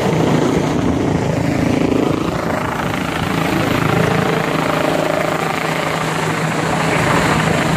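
Helicopter flying low overhead, its rotor and engine giving a loud, steady drone.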